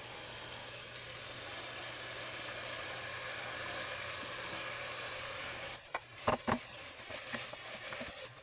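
Dry long-grain rice sizzling in hot oil in a pot, a steady hiss as it starts to toast. About five and a half seconds in the sizzle drops away, and a few light knocks of a wooden spoon against the pot follow as the rice is stirred.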